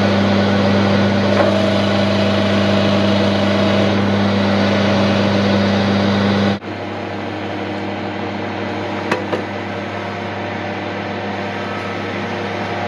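Metal lathe running, its motor and drive giving a steady hum as the chuck spins. About six and a half seconds in the sound drops abruptly to a quieter steady hum, with a couple of faint clicks a little later.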